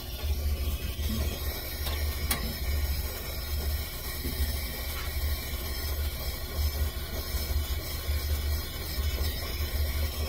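Brazing torch flame burning steadily on a copper evaporator joint, a low flickering rumble with a hiss over it as the tubing is heated to brazing temperature.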